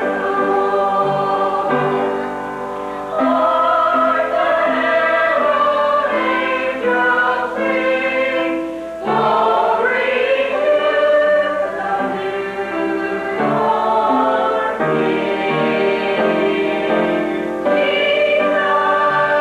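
Church choir singing a hymn in sustained phrases, with a short break between phrases about three seconds in and again about nine seconds in.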